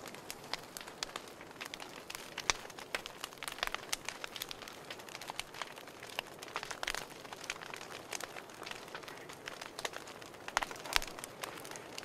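Open campfire crackling, with a steady hiss and dense sharp pops. The loudest pops come about two and a half seconds in and again near the end.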